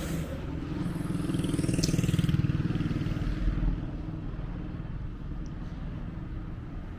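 A motorcycle passing on the street, its engine growing louder to a peak about two seconds in and then fading away, over a steady hum of traffic.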